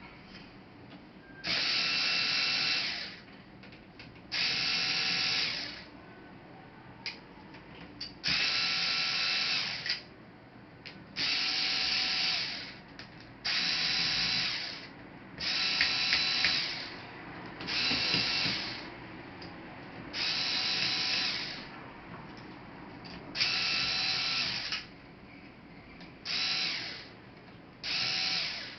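Small electric screwdriver running in short bursts of a second or two, about eleven times, as it drives laptop screws.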